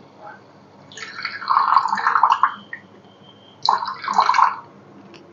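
Milk poured from a metal bowl into a small aluminium pan of brewing tea, in two pours: a longer one starting about a second in and a shorter one just before the four-second mark.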